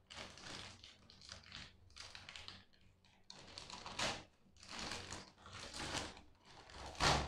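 Plastic mailer bag crinkling and rustling in irregular bursts as it is handled and pulled open, with sharper crackles about four seconds in and near the end.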